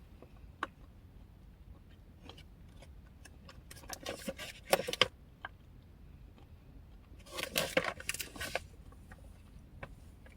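Quiet snacking sounds while eating dark chocolate almond bark: scattered small clicks, with two short bursts of crinkly, crunchy noise about four seconds in and again near eight seconds.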